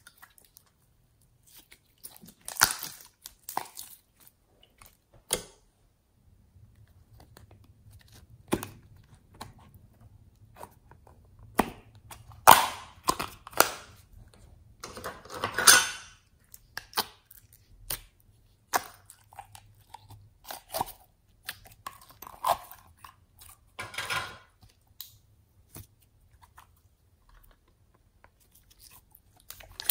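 Slime being squeezed and worked by hand: irregular sticky pops, clicks and crackles, some in quick clusters.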